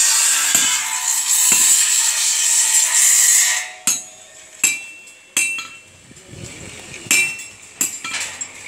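A power tool working metal runs with a steady high hiss, then cuts off suddenly about three and a half seconds in. After it come sharp metallic hammer blows and clinks on iron, about five strikes, some with a short ring.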